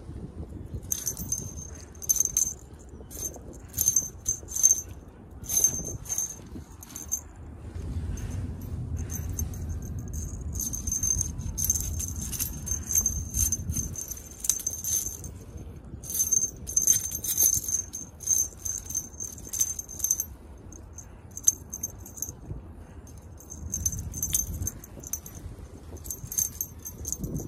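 Small jingle bell on a cat teaser wand, tinkling in irregular bursts as the toy is jiggled and batted by cats.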